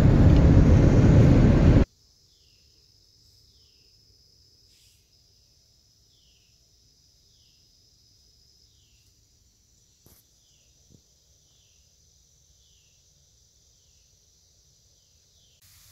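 Car driving noise heard from inside the cabin for about two seconds, cut off abruptly. Then faint insect song: a steady high buzz with a short falling chirp repeating a little more than once a second.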